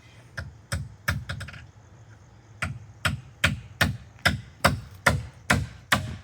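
Hammer blows during deck construction: a few scattered strikes, then a steady run of blows about two and a half a second.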